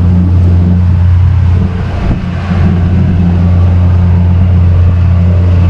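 Boat motor running steadily under way, a deep continuous drone with the wash of churned water, dipping briefly about two seconds in.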